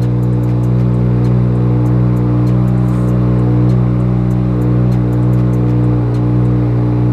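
Single-turbo BMW N54 inline-six idling steadily at about 1,000 rpm just after start-up, with a light irregular ticking over the engine note. It runs smoothly and throws no faults after the Motiv Reflex and ethanol sensor install.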